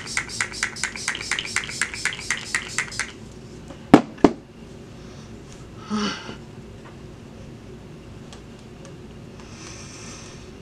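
A pump spray bottle of face spray spritzed rapidly, about sixteen quick hissing sprays over three seconds at roughly five a second, misted onto the face to set the powder under the eyes. Two sharp clacks follow about four seconds in.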